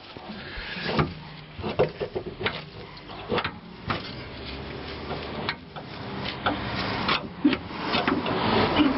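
Irregular metal knocks, clicks and scrapes as suspension parts are handled and worked on, growing busier and louder near the end.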